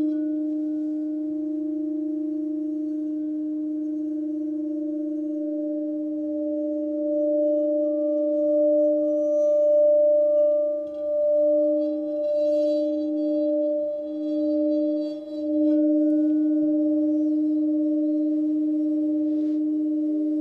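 Sustained meditation tones: a low hum and a second tone about an octave higher, held steady. In the second half the volume swells and dips in slow waves a few times, and faint high sparkles come and go near the middle.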